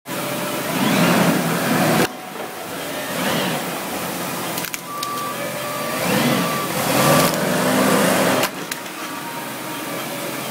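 Lift truck running close by, its motor whine rising and falling in pitch several times as it manoeuvres, over a steady mechanical noise, with a few sharp clicks.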